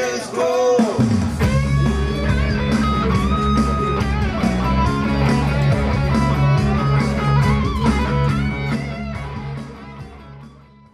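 A rock song with electric guitar over bass and a steady beat, fading out near the end.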